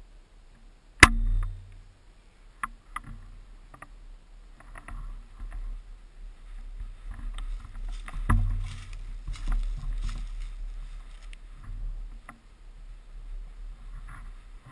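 Two sharp shots from a spring-powered Tokyo Marui VSR-10 airsoft sniper rifle, about a second in and again about seven seconds later, with rustling, scraping and small clicks of handling and bolt-cycling in between.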